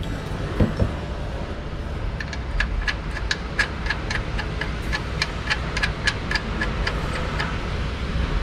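A run of sharp, evenly spaced ticks, about three a second, starting about two seconds in and stopping near the end, over a steady low hum.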